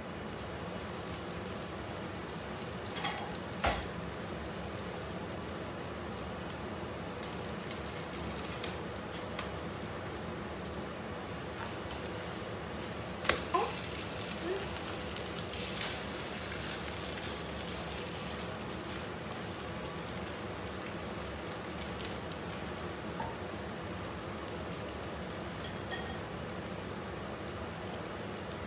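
Egg omelette frying in a nonstick wok, a steady sizzle throughout. A few sharp clicks come as the glass lid is lifted off early on, and a louder knock about halfway through as the omelette is turned with a spatula.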